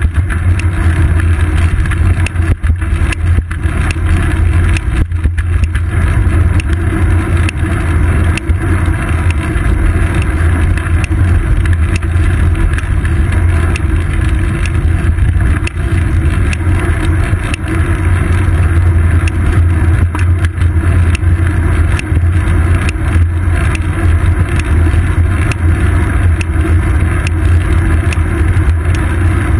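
Wind and road rumble on a GoPro Hero 2 mounted on a moving bicycle's seat post: a loud, steady low rumble with many small knocks from bumps in the road surface.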